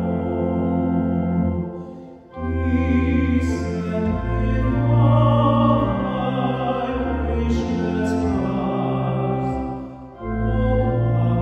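A solo male voice sings an offertory anthem over sustained organ chords. The music breaks off briefly between phrases twice: about two seconds in and near the end.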